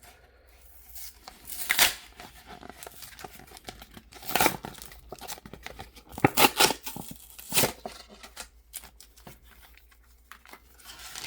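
Packaging of a Pokémon trading-card three-pack blister being torn open, paper and plastic ripping and crinkling in about four short pulls.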